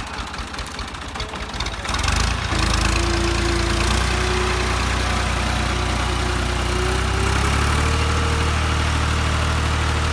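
Tractor diesel engine ticking over with a rhythmic knock, then opened up about two seconds in and held at high revs. Its pitch climbs a little further around seven seconds, as the tractor labours under load with its rear wheels churning through deep paddy mud.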